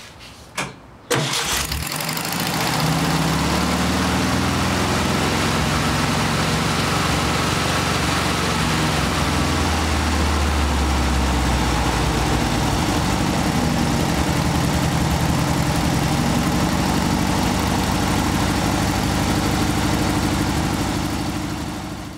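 Air-cooled 36-horsepower VW flat-four engine starting about a second in and catching at once, then running at a fast idle. The carburetor's idle control screw is being backed off to bring the high idle down, and the sound fades out near the end.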